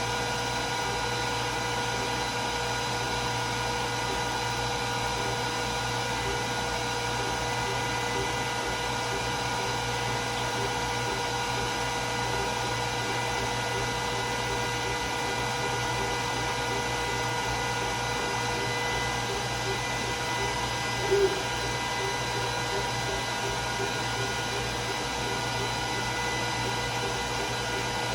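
Glowforge Plus laser cutter running a cut: a steady whir of its fans with a constant whine. A short louder blip sounds about three-quarters of the way through.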